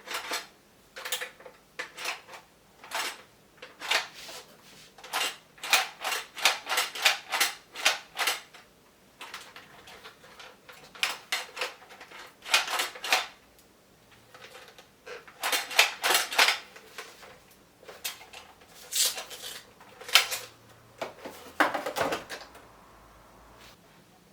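Hard plastic parts of a toy gel-ball gun being handled, with many irregular clicks and rattles in quick clusters.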